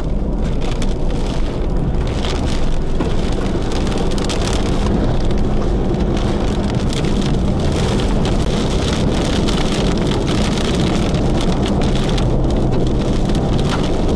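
Rain and wind beating against a vehicle, a dense, steady rushing noise with a constant low rumble underneath.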